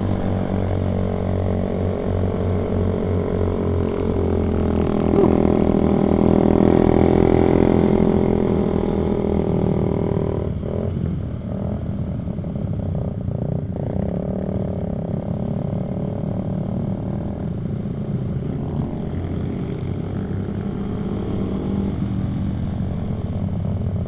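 Motorcycle engine running under way, heard from the rider's helmet with wind rush. The engine note climbs and grows louder about five seconds in as the bike accelerates, then eases off and holds steady for the rest of the ride.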